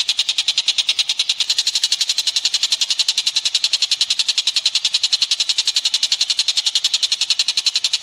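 Masteran songbird-training recording of a high-pitched trill, pulsing evenly at roughly ten pulses a second without a break.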